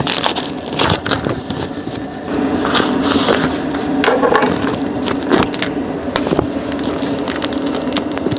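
Plastic food packaging crinkling and rustling as packets are handled and torn open, with irregular sharp crackles, over a steady low hum.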